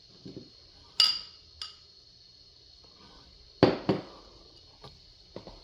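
Sharp clinks and knocks of glass dishes being handled and set down. There are two pairs, one about a second in and one a little past the middle, with a few fainter taps near the end.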